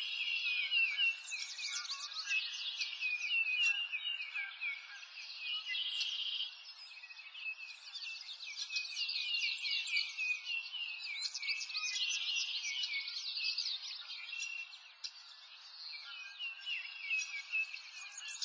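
A dense chorus of small birds chirping and twittering, many quick, falling chirps overlapping without pause. It thins out briefly twice, around a third of the way in and again about four-fifths through.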